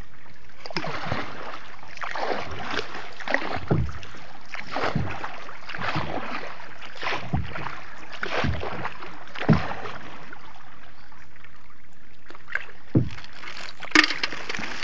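Paddle strokes pulling a small boat through floodwater: a swish of water roughly every second or so, with a lull near the end and a few sharper knocks.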